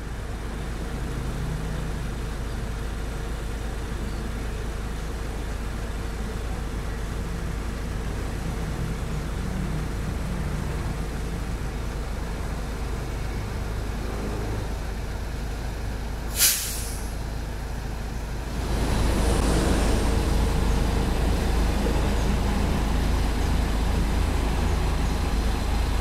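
Heavy diesel engines running with a steady low rumble, getting louder about two-thirds of the way through, with one short, sharp air-brake hiss from the truck just before that.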